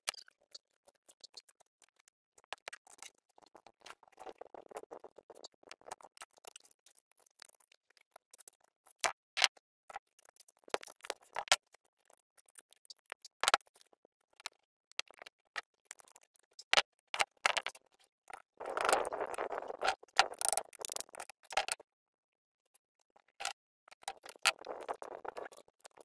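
Handling of a thin sheet-metal strip and wire wrapped around a small engine piston's rings as a makeshift ring compressor: scattered sharp metallic clicks and ticks, with a few short rustling, scraping stretches, the longest about two-thirds of the way through.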